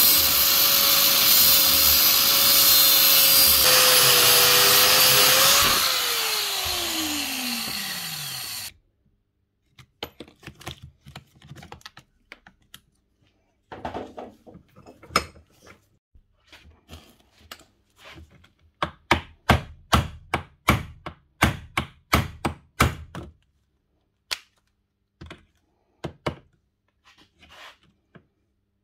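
Angle grinder with a cut-off disc cutting into a seized Makita drill chuck with a steady whine; about six seconds in it is lifted off and the disc spins down with falling pitch, then cuts off abruptly. After a short gap come a run of sharp knocks from hammer blows on the part-cut chuck, the loudest about two a second.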